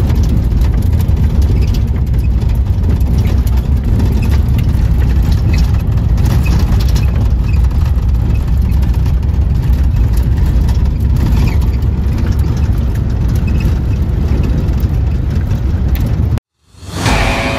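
Holden EH's straight-six engine and tyres heard from inside the cabin while driving on a dirt road: a loud, steady low rumble with road noise. It cuts off suddenly near the end, and guitar music starts.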